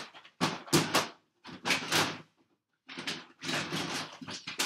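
A string of short knocks, clatters and sliding scrapes from hard objects being handled, with a longer stretch of scraping and rattling near the end.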